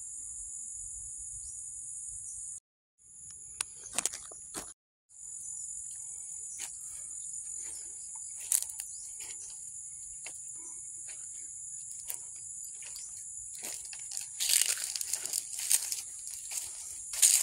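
A steady high-pitched insect drone, with footsteps crackling through dry leaves and grass that grow denser and louder near the end. The sound cuts out briefly twice in the first few seconds.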